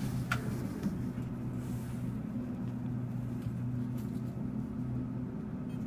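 ThyssenKrupp elevator car travelling between floors: a steady low hum heard inside the cab.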